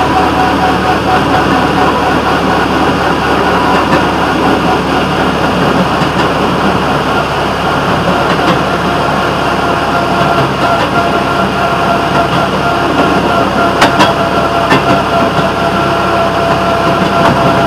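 Railroad motorcar running along the track: steady engine and wheel-on-rail noise with a thin, steady whine, and a few sharp clicks about fourteen seconds in.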